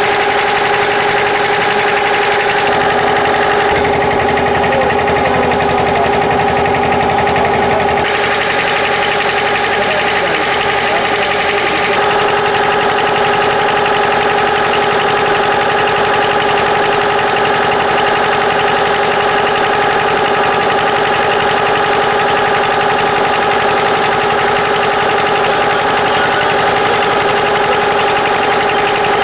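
An engine running steadily: a constant drone with a steady hum in it.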